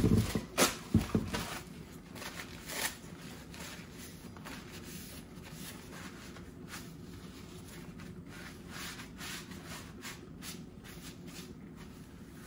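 A paper towel rubbing and wiping across a plastic cutting board, in soft rustling strokes, after a few sharp knocks in the first second as the board and knife are handled. A steady low hum runs underneath.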